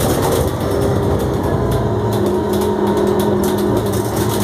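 Iveco 12 GNV natural-gas city bus engine pulling hard under kickdown, the automatic gearbox dropped a gear at full throttle, heard from inside the passenger cabin. The engine runs with a steady drone and a few held tones.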